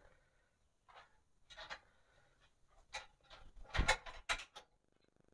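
Scattered clicks and clanks of hand tools and metal parts as a small engine is fitted and bolted to a rice thresher's frame, a handful of light knocks with a louder cluster about four seconds in.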